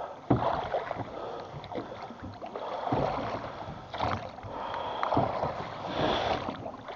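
Oars rowing a small boat: the blades dip and pull through the water with knocks from the oarlocks, a stroke every second or so.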